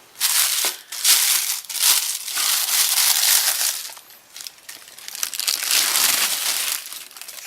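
Packaging crinkling and rustling as the camera's kit lens is unwrapped by hand. It is a dense crackle, easing off for a moment past the middle and then picking up again.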